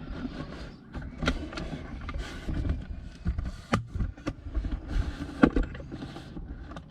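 Hands working on an opened car door panel: irregular plastic clicks, knocks and scraping, the sharpest knock about five and a half seconds in, over a low rumble of handling noise.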